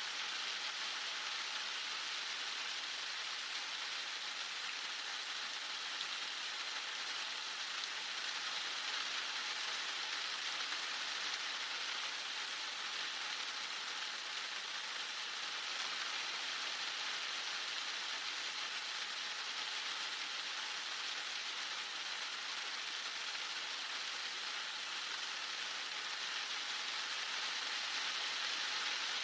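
Heavy rain falling steadily, a dense even hiss of drops on surfaces with no change in strength.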